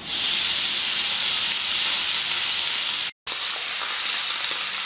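Whole marinated catla fish sizzling loudly in a hot iron pan, the hiss starting suddenly as the fish goes in. The sizzle breaks off for a moment about three seconds in, then carries on steadily.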